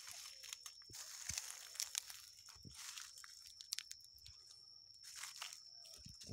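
Irregular crunching and rustling of dry leaves, straw and foliage as someone moves through the plants, over a faint steady high-pitched tone.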